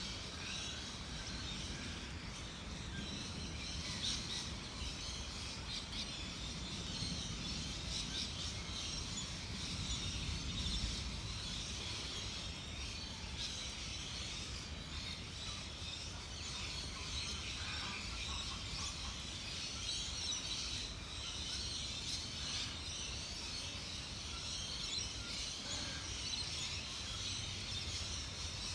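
Outdoor natural ambience: birds chirping and calling over a steady hiss, with a low rumble of wind.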